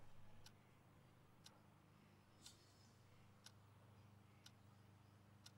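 Faint clock-like ticking, one tick each second, over near silence.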